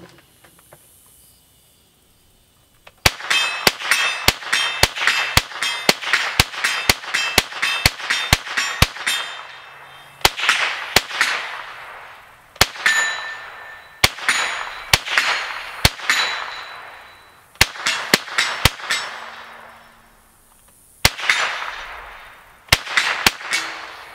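ATI GSG-16 semi-automatic .22 LR rifle firing a magazine: a quick even string of about three shots a second starting a few seconds in, then slower single shots and pairs with pauses between. Some shots are followed by a brief metallic ring.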